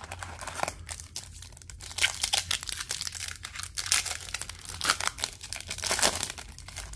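Foil trading-card pack wrapper crinkling and tearing as it is ripped open by hand, with sharp, irregular crackles throughout.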